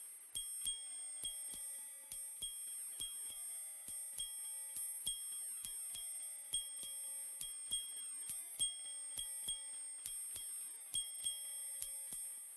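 Synthesized ultra-high-pitched tone for tinnitus relief, held steady but breaking off and restarting every second or so with a faint click at each restart. Faint short chirps sit far below it in pitch.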